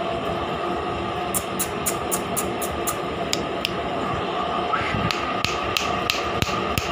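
Two runs of sharp, light clicks or taps, about four a second, over a steady background hum.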